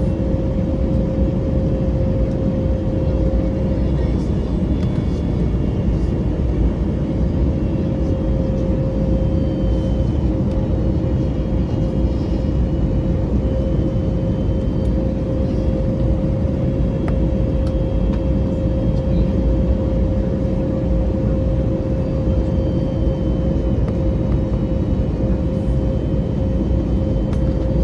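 Cabin noise in an Airbus A321neo descending on approach: a steady rumble of airflow and the CFM LEAP-1A turbofan engines, with an even droning tone running through it.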